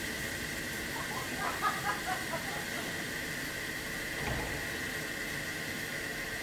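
Steam hissing steadily from narrow-gauge steam locomotive 99 1542-2, a jet of steam blowing off beside the chimney as it stands. A brief scatter of short higher sounds about one to two and a half seconds in, and a faint low thump a little after four seconds.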